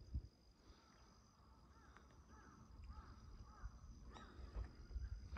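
Faint outdoor ambience: insects trilling steadily on a high note while a bird calls repeatedly in the distance through the middle. Soft footsteps are heard near the start and again toward the end.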